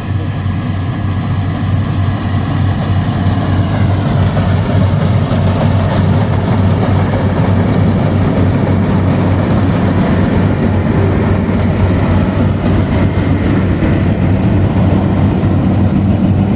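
Yanmar AW70 combine harvester running while harvesting rice: a steady, loud diesel engine drone with dense machinery noise over it, growing somewhat louder over the first few seconds.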